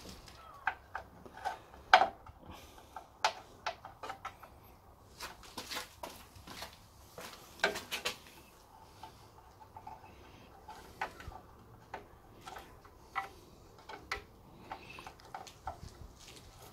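Irregular small clicks, taps and light knocks with faint rustling: a braided brake flexi hose and its metal end fitting being handled and fed through a hole in a classic Mini's rear subframe. Two sharper knocks stand out, about 2 and 8 seconds in.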